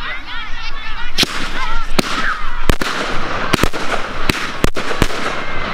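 Display fireworks going off: about ten sharp bangs in quick, uneven succession, starting about a second in, over crowd chatter.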